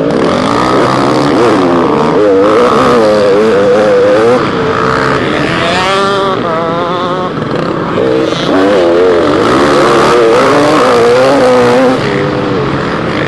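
Motocross bike engine heard close up from the rider's helmet, revving up and down as it is ridden hard round a dirt track, the pitch rising and falling continually and climbing highest about six seconds in.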